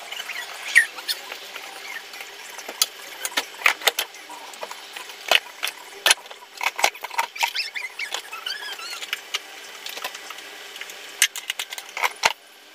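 Wooden spatula stirring in a nonstick frying pan, knocking and scraping against it as sharp, irregular clicks, with a few faint squeaks.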